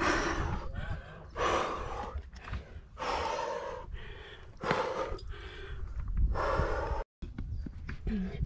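A rock climber breathing hard and gasping under effort, about five loud, breathy exhalations a second or so apart. The sound cuts out completely for a moment about seven seconds in.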